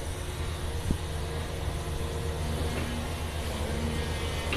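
Caterpillar 336 Next Gen excavator's diesel engine running steadily under load as the bucket works into the clay pile, with a single knock about a second in. A faint higher whine rides over the drone in the second half.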